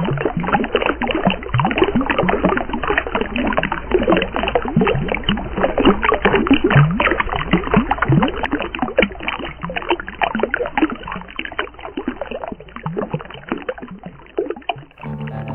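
Water splashing and gurgling over a steady low rumble, dense and irregular throughout. Guitar music starts right at the end.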